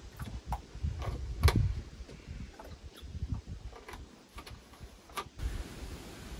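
A series of irregular light clicks and taps, about nine in five seconds, the loudest about a second and a half in, over a low rumble; it gives way to a steady hiss about five seconds in.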